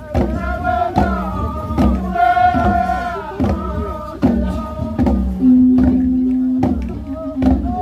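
Group chanting in unison to a steady beat of hand-held hourglass drums (kundu). The voices hold one long note about two thirds of the way in.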